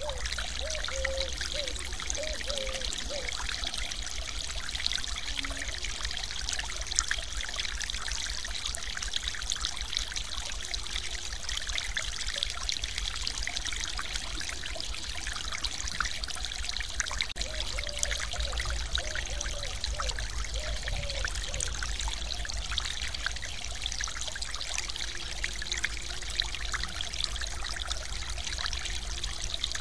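Stream water pouring over a small weir's lip into the pool below: a steady splashing rush, with a low rumble underneath.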